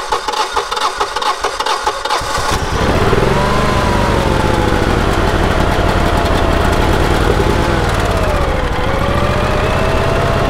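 Generac GP15000E portable generator's V-twin engine cranking on its electric starter with fast, even pulses, catching a little over two and a half seconds in, then running steadily with its pitch rising and dipping slightly as the speed settles.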